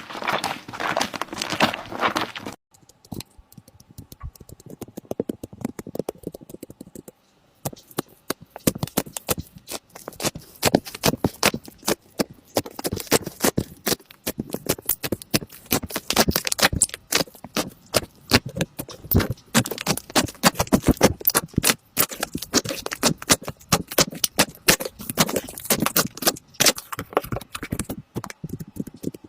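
Slime being squished and worked by hand, making rapid, irregular sticky clicks and pops, with a quieter, sparser stretch a few seconds in.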